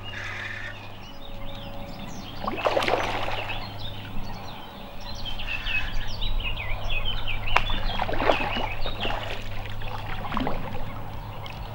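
Water splashing and sloshing at the pond's edge in several irregular strokes, with birds chirping throughout and a low steady hum underneath.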